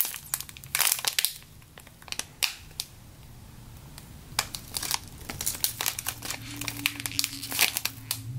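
Clear plastic bag crinkling in irregular crackles as the squishy toy inside is squeezed and turned over by hand.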